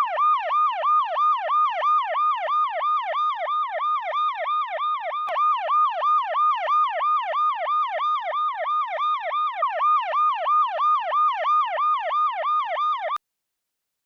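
Electronic emergency-vehicle siren in yelp mode: a fast, repeating up-and-down sweep at about three to four cycles a second, which cuts off suddenly near the end and then gives one brief chirp.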